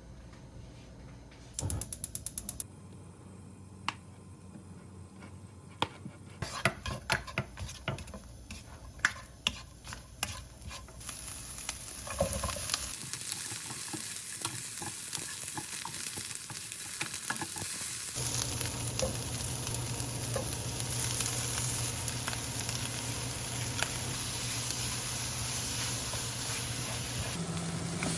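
Pork trotters being stir-fried in a pan: a quick run of clicks, then a utensil scraping and tapping against the pan, then frying sizzle that swells and grows louder from about halfway. A steady low hum joins the sizzle in the second half.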